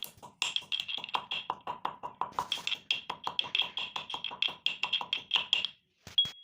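Giloy (neem giloy) stem pieces pounded in a mortar with a pestle: a rapid, even run of ringing strikes, about five a second, that stops shortly before the end.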